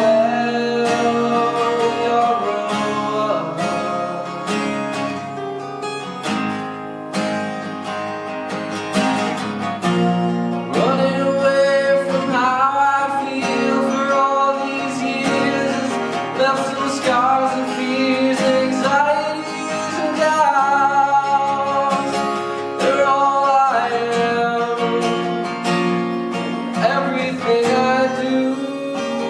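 Live acoustic guitar strummed and picked, with a singer's voice over it.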